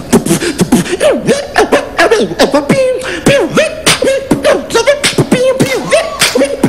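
Human beatboxing into a handheld microphone: quick drum-like mouth hits over a hummed tone that swoops down in pitch again and again.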